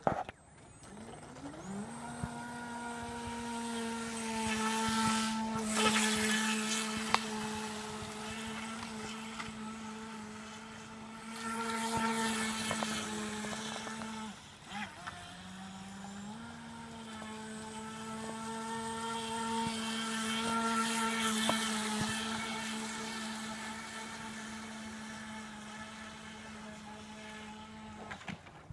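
Feilun FT012 RC racing boat's brushless electric motor and propeller whining at a steady high pitch, swelling and fading as the boat runs up and down the water. About halfway through the whine drops lower for a couple of seconds as the throttle eases, then climbs back to the same pitch.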